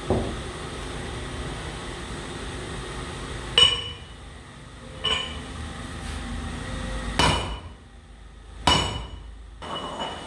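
A hammer striking metal with a ringing clang, six blows spaced irregularly one to two seconds apart, over a steady low machine hum.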